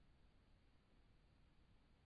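Near silence: the faint, steady hiss of a trail camera's recording, with no distinct sounds.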